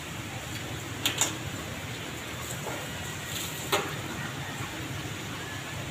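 Steady hiss of rain and wind in a storm, with a few sharp clicks about a second in and again near four seconds.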